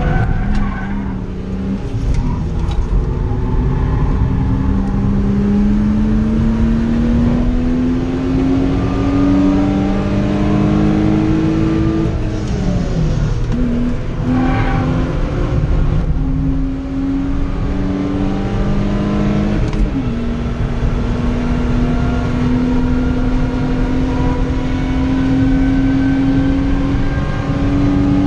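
BMW 323ti's 2.5-litre straight-six heard from inside the cabin under hard driving, its pitch climbing steadily as it pulls through the revs. About halfway the revs fall off under braking and come back up with a downshift, then the pitch drops sharply at an upshift about two-thirds in and again near the end, over a steady rumble of road and tyre noise.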